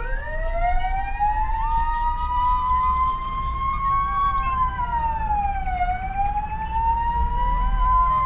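Electronic siren on the vehicle, heard from inside the cab. It winds up from a low pitch as it is switched on, then wails slowly up and down, dipping about six seconds in and rising again. Low engine and road rumble runs underneath.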